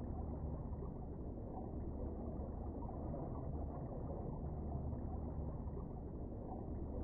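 Steady, muffled low rumble of water as heard by an underwater camera, with nothing sharper above it.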